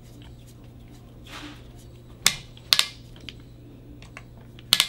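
Hand tools working small T10 screws into an aluminium red dot mount on a shotgun receiver: a faint scrape, then a few sharp metallic clicks as the screwdriver and torque driver are set in and turned, two a little over two seconds in and more near the end.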